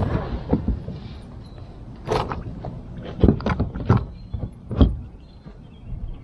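Pedal kayak seat being shifted on its rails: a string of irregular knocks and clunks, the loudest near the end.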